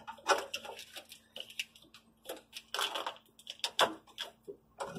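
Battery cables in corrugated plastic wire loom being pushed and bent aside by hand, giving a run of irregular clicks and rustles.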